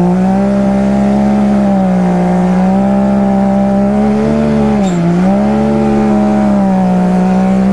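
Can-Am Maverick X3 side-by-side engine held at high, steady revs under throttle while the machine spins donuts in the dirt. The pitch dips briefly about five seconds in and then climbs back.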